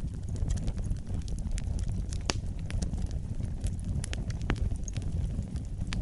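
Wood fire burning in a fireplace: a steady low rumble of flames with irregular sharp crackles and pops, the loudest a little over two seconds in.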